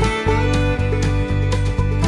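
Instrumental background music with a steady, pulsing beat.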